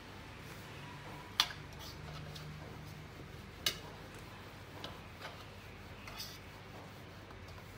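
Baozi wrappers being hand-rolled with a small wooden rolling pin on a wooden work board: a few sharp clicks and light taps of the pin and utensils, the two loudest about a second and a half and three and a half seconds in.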